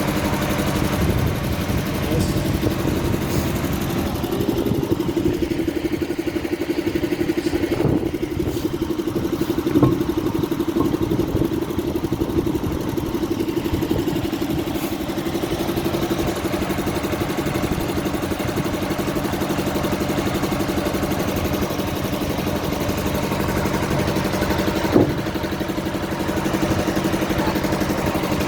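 Heavy diesel engine idling steadily, with a few short knocks.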